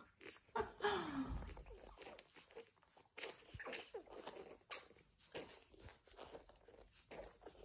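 French bulldog puppies moving about: light scratching, shuffling and clicking sounds, with a short falling whine about a second in.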